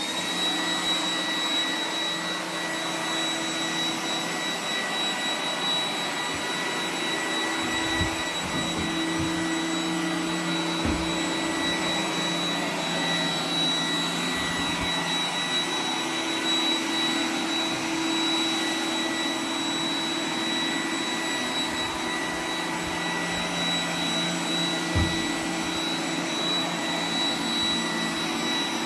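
Roomba 980 robot vacuum running: a steady suction whir with a thin high whine and a low motor hum that drops out and returns, plus a few soft knocks.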